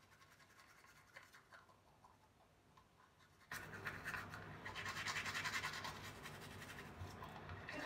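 Manual toothbrush scrubbing teeth with quick back-and-forth strokes, faint at first and suddenly louder from a little before halfway through.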